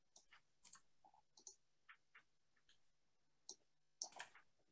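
Near silence on a video call, with a few faint scattered clicks and ticks.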